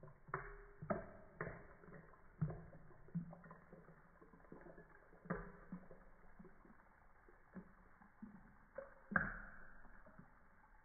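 Drink being poured from a bottle into a glass, heard slowed down in slow motion: irregular low plops and gurgles with short ringing, the loudest about nine seconds in.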